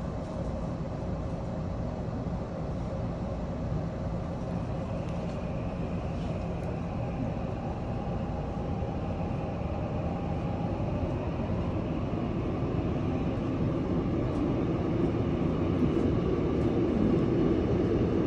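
Subway train running, heard from inside the car: a steady rumble of wheels and running gear with a faint whine above it, growing louder over the last few seconds.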